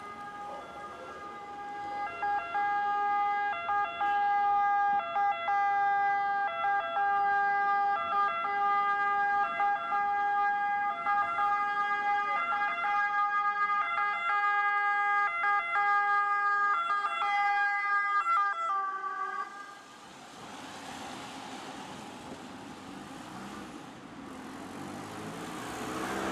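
A siren sounding one steady held tone with brief, regular dips in pitch, cutting off about nineteen seconds in. After that comes the rising rush of a passing vehicle.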